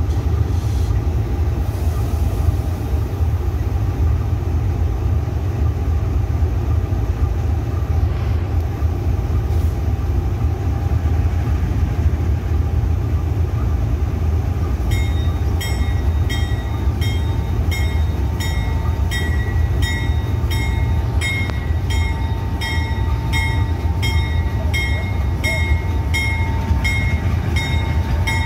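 GE U20C diesel-electric locomotives running with a steady deep engine rumble as a loaded tank train approaches slowly. About halfway in, a short high ringing starts, repeating a little more than once a second.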